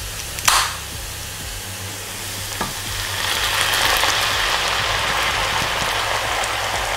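Chopped onions sizzling in oil in a frying pan; a beer can pops open with a short hiss about half a second in. From about three seconds on, beer poured into the hot pan hisses and foams, louder and steady.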